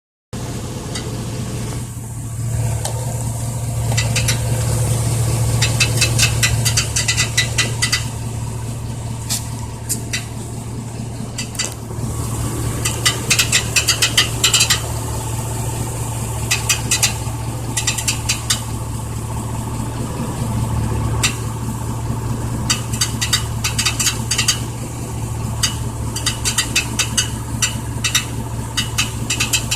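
1999 Chevy Silverado running with a steady engine hum and a rapid metallic rattle that comes and goes in spells of a few seconds; the cause of the rattle is unknown to the owner.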